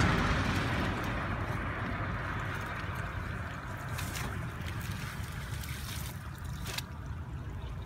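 Wet rustling and splashing as clumps of waterweed are torn out of a flooded net enclosure and thrown aside, under a steady low wind rumble on the microphone. The sound is loudest at first and eases off, with a few sharp clicks about four and seven seconds in.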